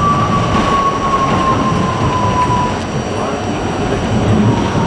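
New York City subway train running along elevated track with a steady rumble, and a thin metallic squeal whose pitch slides slowly down and fades a little past halfway.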